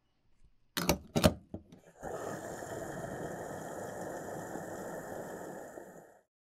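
Small mechanism: a few sharp clicks, then a steady whirring for about four seconds that stops abruptly.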